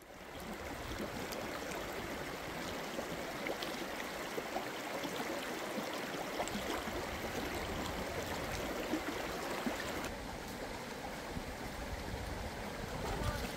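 Shallow stream rushing and babbling over rocks, fading in over the first second.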